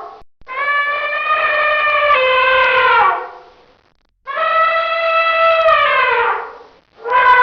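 Elephant trumpeting: two long, brassy calls of about two and a half seconds each, each sagging in pitch at its end, with a third call starting near the end.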